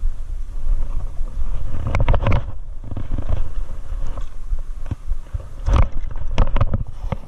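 Low rumble of clothing and wind rubbing against a chest-mounted camera's microphone. Sharp rustles and knocks from handling come about two seconds in and again in a cluster near the end.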